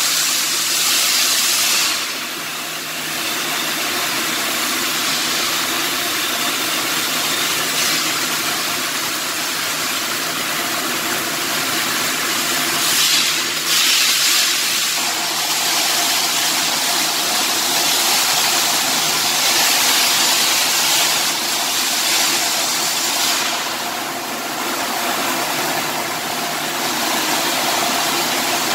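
Stick (shielded metal arc) welding: the electrode's arc hissing and crackling steadily, over a steady low hum. It eases briefly about two seconds in and again near the end.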